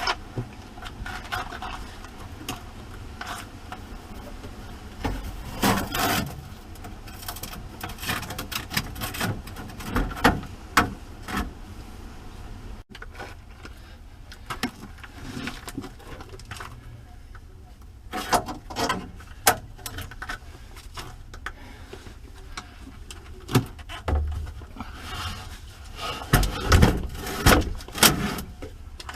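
Irregular knocks, clunks and scrapes of hard objects being handled and set down, as a hard plastic pad is laid in the battery compartment and the new coach batteries are put in.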